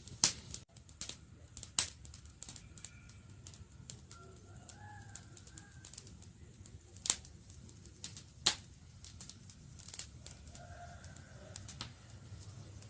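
Campfire crackling: burning wood gives irregular sharp pops and snaps over a low steady rumble, with a few loud pops standing out, one just after the start and two more past the middle.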